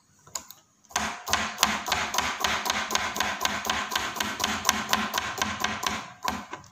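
Kitchen knife slicing baby corn into thin rounds on a wooden cutting board: a quick, steady run of blade taps, about six a second. It starts about a second in and stops near the end.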